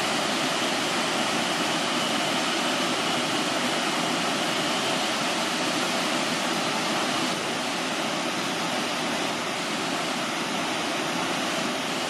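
Waterfall rushing with a steady, even roar of falling water, dipping slightly about seven seconds in.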